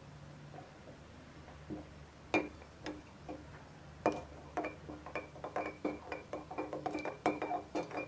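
A series of sharp taps on something that rings with the same short tone at each strike. The taps start about two seconds in and come faster and closer together toward the end.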